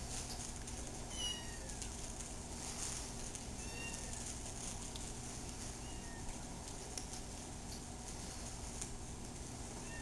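Kitten mewing: a few thin, high-pitched mews spaced a couple of seconds apart, the first one longer than the rest.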